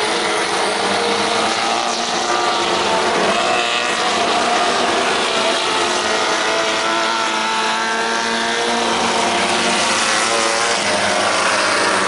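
Several 1600cc off-road race buggies racing past on a dirt track, their Volkswagen-based flat-four engines overlapping, with engine pitch rising and falling as they accelerate through the corners.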